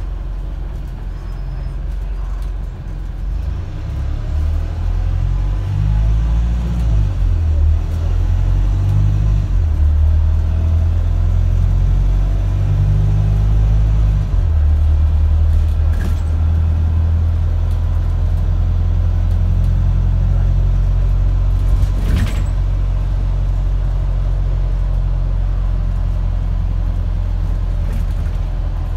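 Wright StreetDeck double-decker bus engine pulling hard, heard from the upper deck: the engine note climbs and drops several times as it accelerates through the gears, then runs steadily at speed. Two sharp knocks come through about halfway and two-thirds of the way in.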